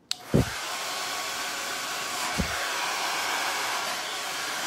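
Hand-held hair dryer switched on at its high setting just after the start, then running with a steady loud blowing noise. Two brief low thumps come through about half a second and two and a half seconds in.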